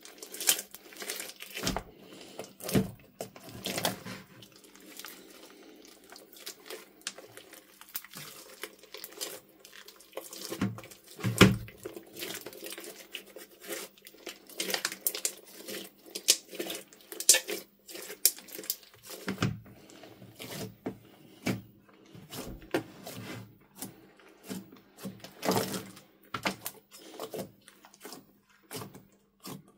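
Hands kneading, squeezing and pressing a large mass of glossy slime: a dense run of irregular sticky pops, clicks and squelches.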